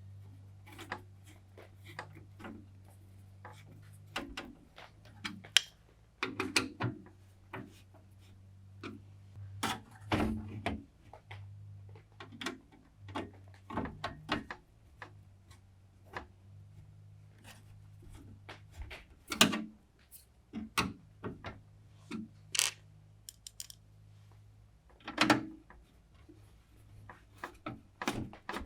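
PC parts being handled and fitted together by hand: a string of irregular clicks, taps and knocks of plastic and metal, several of them sharp. A low steady hum runs underneath and drops out now and then.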